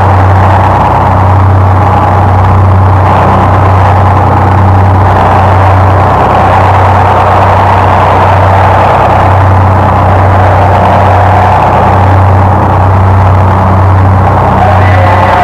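Power electronics noise track: a loud, harsh distorted noise drone over a heavy low hum, swelling and ebbing in a slow, even pulse.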